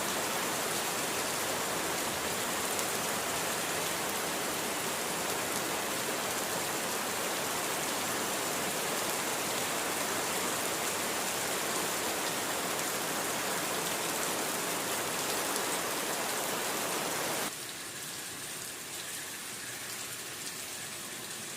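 Steady rainfall, a dense even hiss of drops on surfaces. About three-quarters of the way through it drops suddenly to a softer rain.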